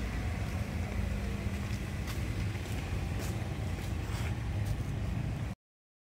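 Street traffic: a steady low rumble of passing road vehicles, which cuts off suddenly near the end.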